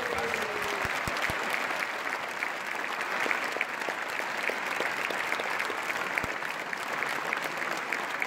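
A packed hall audience applauding steadily.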